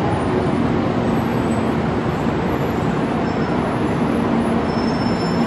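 JR Kyushu 800 series Shinkansen train pulling into the platform and slowing: a steady rush and rumble of the moving cars. A faint high whine comes in near the end as it brakes toward a stop.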